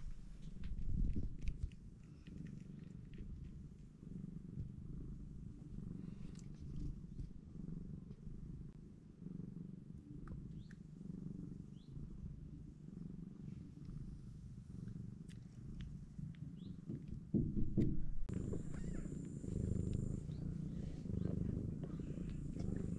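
Domestic mother cat purring steadily, a low rhythmic rumble, while her newborn kittens nurse. About 17 seconds in there is a short louder rustle, after which a faint high steady whine comes in.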